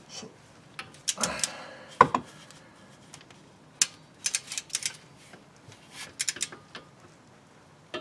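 Metallic clicks and clinks of a socket wrench ratcheting as brake caliper bracket bolts are tightened, coming in short irregular runs with one sharper clink about two seconds in.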